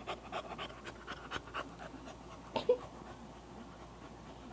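English bulldog panting heavily, about four quick breaths a second, then the panting stops. About two and a half seconds in comes a single brief, sharp sound, the loudest moment.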